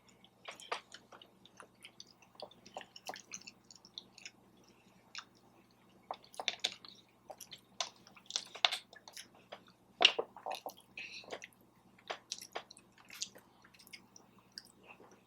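A person chewing food with wet mouth sounds, with irregular short clicks and smacks.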